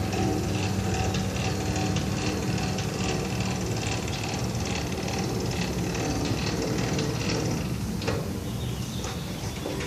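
KEY Automation RAY electric swing-gate operators running as the two gate leaves close: a steady motor hum with scattered light clicks. The hum fades out about eight seconds in as the leaves reach the closed position.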